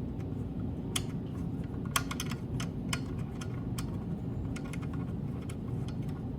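Irregular light clicks and taps of small metal parts as a CNC control pendant is fitted onto its mounting arm bracket and its small retaining screw is worked, over a steady low hum.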